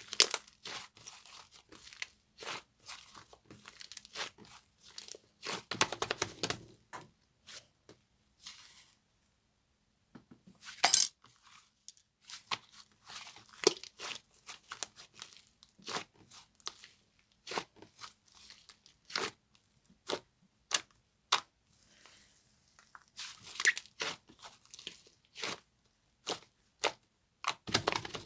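Very hard white slime being stretched, pulled apart and pressed by hand, giving irregular sharp snaps, pops and tearing crackles, with one loud snap about eleven seconds in and a brief pause shortly before it.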